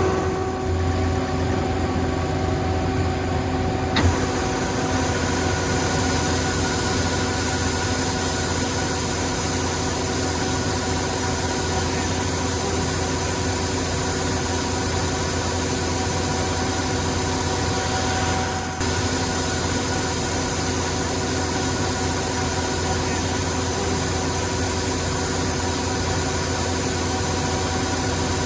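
Yanmar corn harvester's engine running steadily at a constant speed, with a single sharp click about four seconds in.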